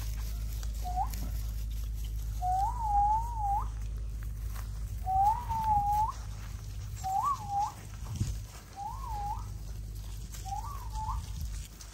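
American bully puppy whining: six high, wavering whines, each rising and dipping in pitch, repeated about every one and a half seconds.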